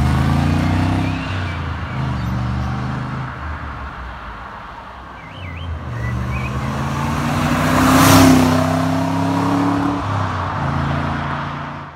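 1977 Corvette C3's L82 350 V8 exhaust, plausibly the final no-cat, Magnaflow-muffler setup. The engine accelerates away with a gear change about a second in and fades off. It then accelerates again and passes close by, loudest about eight seconds in.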